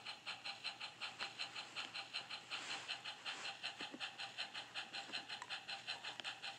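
Battery-powered Thomas & Friends toy train engine running: its motor whines steadily over an even, fast clatter of about four beats a second.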